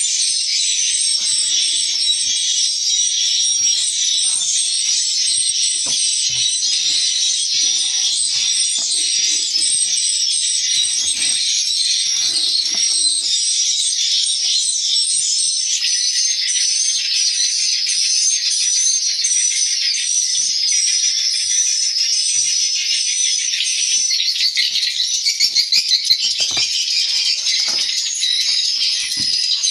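Dense, continuous high-pitched chirping and twittering of swiftlets, many calls overlapping, with scattered low knocks mixed in.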